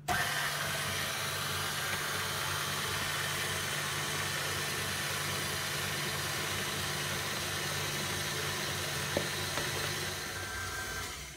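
KitchenAid Artisan tilt-head stand mixer running with its dough hook, mixing flour while wet ingredients are poured in: a steady motor hum that starts suddenly and dies away near the end.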